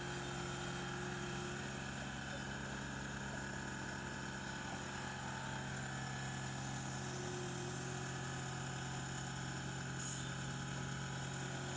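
Construction machine's engine running at a steady idle-like hum, with no change in speed.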